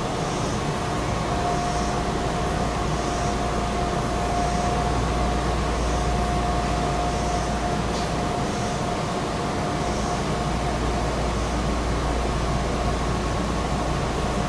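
Steady interior noise of a Meitetsu 6000 series electric train, heard from behind the driver's cab, with a thin steady whine. Faint light ticks come about once a second over the first ten seconds, then fade out.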